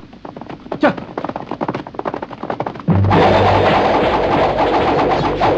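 Martial-arts film fight sound effects: a fast run of sharp punch and block hits, several a second, with one falling whoosh about a second in. About three seconds in, loud music comes in suddenly and runs under a dense clash of blows.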